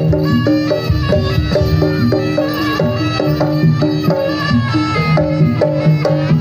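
Javanese jaranan (kuda lumping) gamelan music: drums under struck, pitched metal percussion playing a quick, regular pattern of notes.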